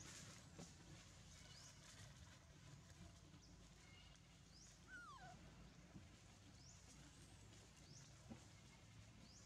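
Near silence: faint outdoor ambience with a few short, high, rising chirps and one falling call about five seconds in.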